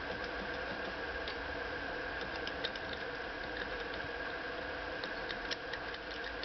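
Handheld steam cleaner running with a steady hiss, blasting old oil and grease out of a vintage Singer sewing machine's metalwork, with a few light metallic ticks.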